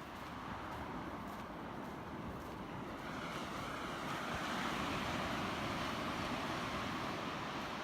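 Ocean waves washing on the shore, a steady rush of surf that swells a few seconds in.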